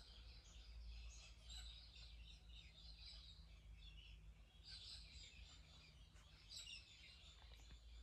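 Near silence while an unpowered Mistral ceiling fan coasts through its long spin-down. Only a faint steady low hum and some faint, scattered high chirps are heard.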